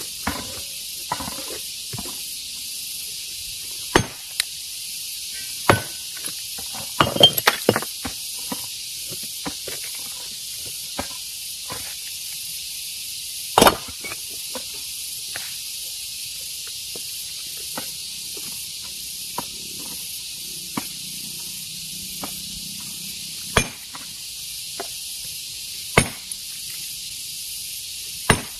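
Hand hammer striking stone: single sharp cracks every few seconds at an uneven pace, with a quick cluster of strikes about seven seconds in. A steady high hiss lies under the blows.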